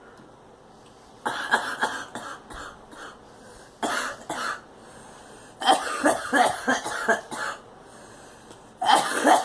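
A girl coughing in four fits, each a quick run of hacking coughs, with short quiet pauses between.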